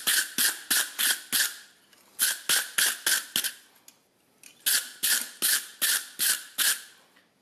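Hand wire brush scrubbing a hot metal bottle opener on the anvil face in quick back-and-forth strokes, about three a second, brushing it clean. The brushing comes in three runs, broken by short pauses at about two and four seconds in.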